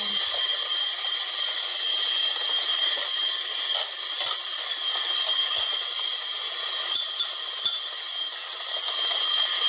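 Electric hand mixer running steadily, its beaters whisking whipped eggs as icing sugar is added for a sponge batter.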